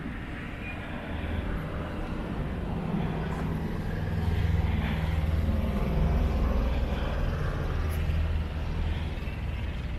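Low, steady engine hum of a passing vehicle, growing louder about a second in, loudest in the middle and easing off near the end.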